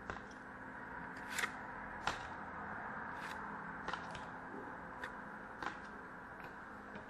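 Soft flicks and slides of hockey trading cards being moved off a hand-held stack one at a time, about one every second, over a steady low hum.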